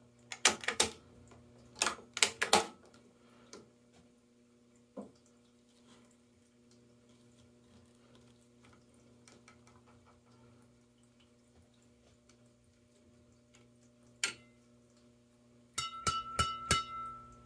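Sharp clicks and clacks of a badminton stringing machine's frame mounts and clamps being handled, a quick run of them in the first few seconds, then a faint steady hum. Near the end, a knock and a cluster of clicks with a short ringing tone as the freshly strung racket is lifted off the machine.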